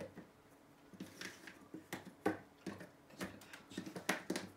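Small letter tiles being pulled off a whiteboard and set back on an alphabet strip: a string of light irregular clicks and taps, with a little rustling.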